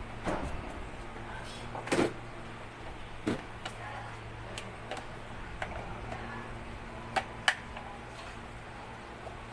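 Scattered clicks and knocks of an electric fan's plastic motor housing being handled and fitted onto its stand pole, the loudest about two seconds in and a sharp pair near the end. A low steady hum runs underneath.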